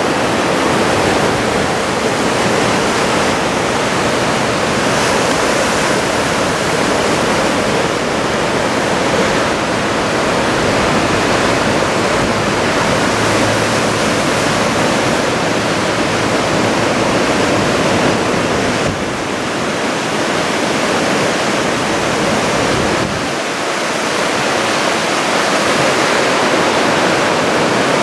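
Steady roar of heavy ocean surf, big typhoon-driven waves breaking, with brief dips in loudness about two-thirds of the way through.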